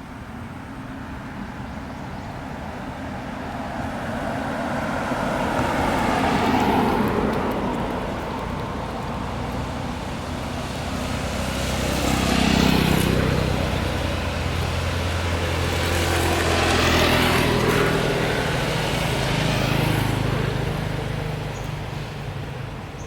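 Road traffic: about four vehicles drive past one after another, each swelling up and fading away, with a low engine drone under the middle stretch.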